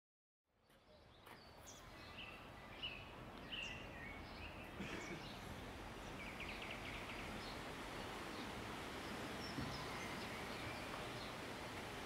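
Small birds chirping in short high calls, with a quick rapid trill about six seconds in, over a steady rushing background noise that fades in at the start.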